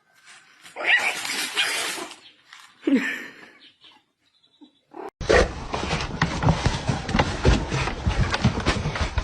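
A pet animal calling: a noisy call of about a second, then a short call falling in pitch. About five seconds in, a steady run of rapid rattling and knocking takes over.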